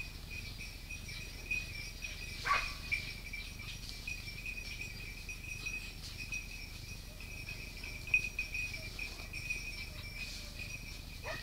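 Insects chirring steadily in dry summer scrub, a continuous high-pitched buzz, with a couple of brief sharp sounds, the loudest about eight seconds in.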